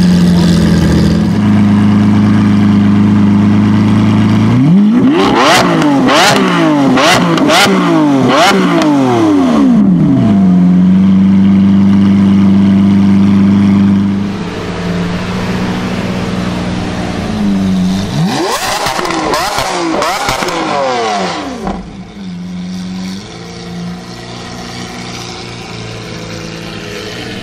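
Lamborghini Aventador V12 engines revving with the cars standing still. A steady engine note gives way to several sharp revs in quick succession, each rising and falling, and then a held high note. After a drop in level, a second burst of revs settles to a lower, steady idle.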